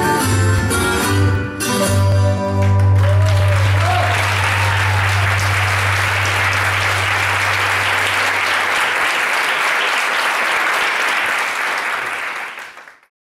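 Dance music ends about three seconds in, its low held note dying away, and an audience applauds; the applause cuts off abruptly near the end.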